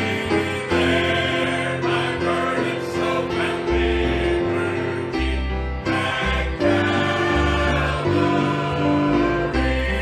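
A church congregation singing a gospel hymn in chorus over instrumental accompaniment, with sustained notes and a moving bass line.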